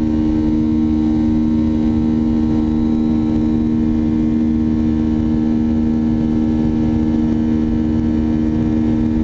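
Boeing 737-800's CFM56-7B turbofan engines heard from inside the cabin at a window seat, running steadily in flight: an even drone with two strong low hums over a rumble.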